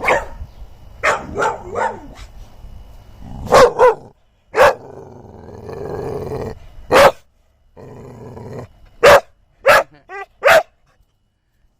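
A dog growling and giving about seven short, sharp barks in between, a dog guarding her bone from another dog.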